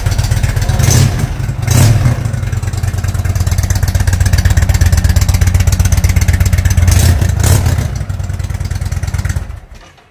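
Indian Dark Horse motorcycle's air-cooled V-twin engine running, revved briefly about a second in and near two seconds, and twice more around seven seconds in, then switched off shortly before the end.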